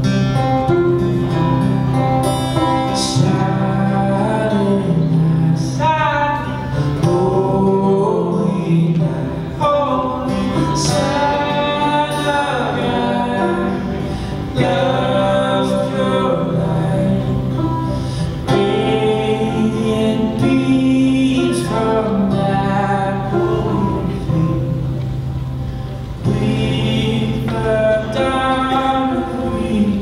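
Acoustic guitar and banjo strummed and picked together while men sing a slow melody into microphones.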